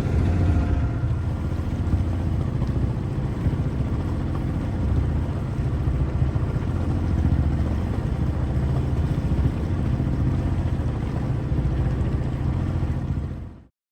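Sailing yacht's engine running at low power under way, a steady low pulsing rumble, with the propeller fouled by wrapped cargo strapping so it only limps along. It cuts off suddenly near the end.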